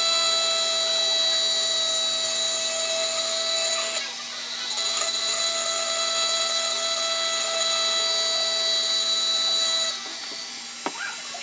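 Flexible-shaft rotary tool running with its engraving bit grinding into a glass bottle: a steady high-pitched whine. The whine dips briefly about four seconds in, and near the end it drops away as the bit comes off the glass, followed by a single click.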